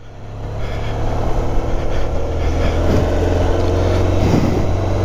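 Motorcycle engine running steadily while the bike is ridden along a street, heard from on board, with wind and road noise. It fades in over the first second.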